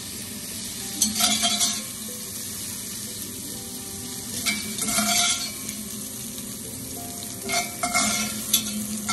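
Oil sizzling steadily in a hot pan, with three bursts of scraping and clatter as sautéed peppers and carrots are scooped out with a mesh skimmer and tipped into a metal mesh strainer.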